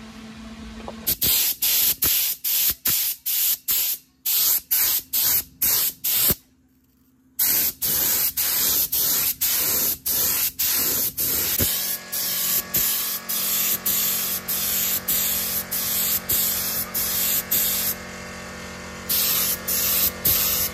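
Spray paint being applied in short, repeated hissing bursts, about two a second, with a pause of about a second near the middle and a brief one near the end.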